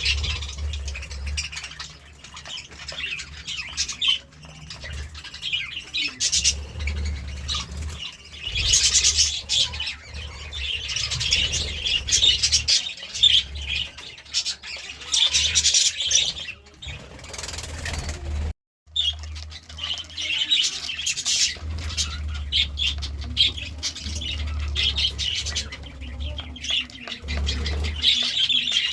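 Budgerigars chattering and chirping in a fast, continuous stream over a steady low hum. The sound cuts out briefly about two-thirds of the way through.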